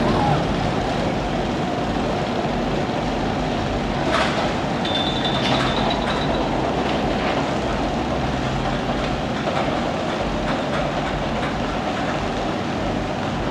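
Mine train roller coaster running along its track: a steady rumble with scattered clicks, and a brief high squeal about five seconds in.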